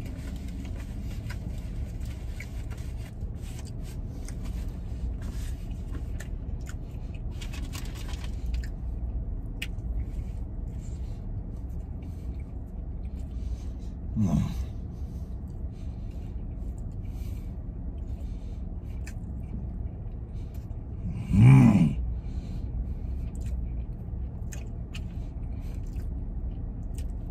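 Rustling, crinkling handling noise for the first eight seconds or so as sticky hands and mouth are wiped, then scattered small eating clicks over a steady low rumble. Two short voiced sounds from the man while he chews come about 14 and 21 seconds in, the second the loudest.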